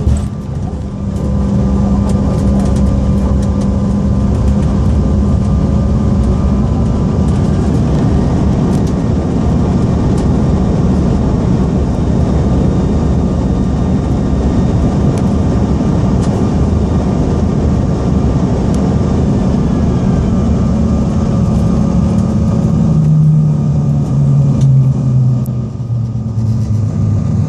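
Cabin noise of a CRJ900 jet rolling out on the runway after touchdown: a steady rumble of wheels and rushing air with the hum of its General Electric CF34 turbofans. Near the end a low hum drops in pitch as the aircraft slows.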